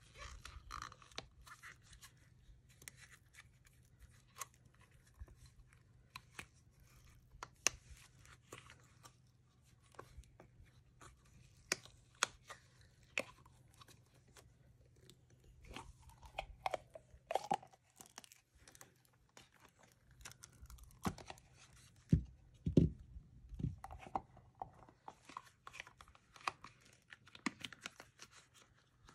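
Flexible silicone mold being flexed and peeled off a cast resin piece that is not yet fully cured: irregular rubbery crackling, squeaks and small clicks, with a few dull bumps about three-quarters of the way through.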